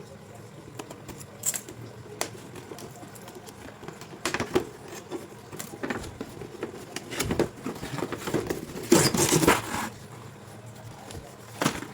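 Handling noises: scattered light clicks and taps with short rustling, the loudest rustle about nine seconds in, as a toy and its packaging are handled.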